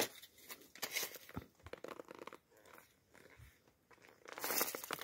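Fibrous stalk of a banana male bud (banana heart) crackling and tearing as it is bent and snapped off by hand, in de-budding the bunch; scattered faint crackles with a louder tearing rustle near the end.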